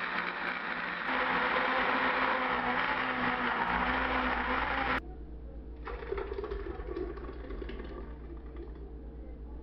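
Electric countertop blender running, puréeing vegetables, getting louder about a second in and stopping abruptly about five seconds in. After it, quieter handling sounds as the purée is poured into an aluminium pressure cooker.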